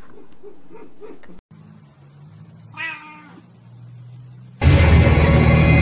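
A domestic cat meows once, briefly, about three seconds in, over a low hum. Near the end a loud rushing sound with music starts suddenly.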